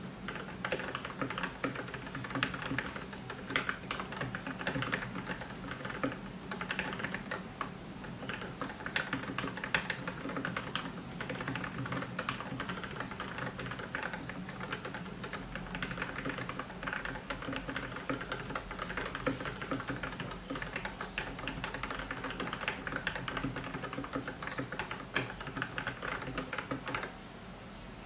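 Typing on a Keydous NJ68 mechanical keyboard fitted with lubed and filmed Gateron Milky Yellow linear switches in black bottom housings: a steady, dense run of keystroke clacks that stops shortly before the end.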